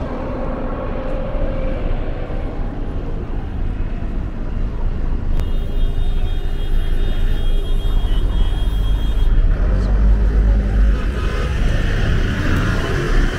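City street traffic: motor vehicles running past, with a heavier low rumble building in the second half as one passes close.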